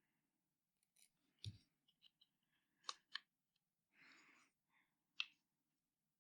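Faint, sparse handling sounds: a soft knock about a second and a half in, a few sharp clicks around three and five seconds, and a brief rustle between them.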